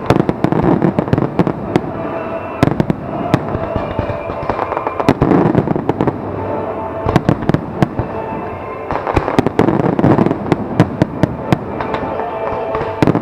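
Aerial fireworks display going off continuously: many sharp bangs and dense crackling in rapid succession, with louder clusters of bursts every few seconds.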